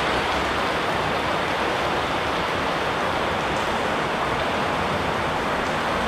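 Steady rushing of falling water from a waterfall, an even roar with no change in level.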